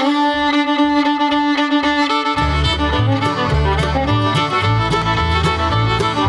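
Background music with a melody line; a bass line and a steady beat come in about two seconds in.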